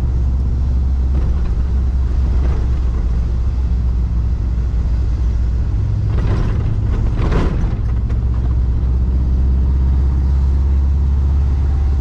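Volkswagen Kombi van driving along a paved street: a steady low rumble of engine and road noise, with a brief swell that rises and falls about six to seven seconds in.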